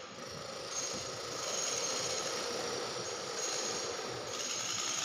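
A machine running steadily, with a thin high whine that drops out and returns a few times.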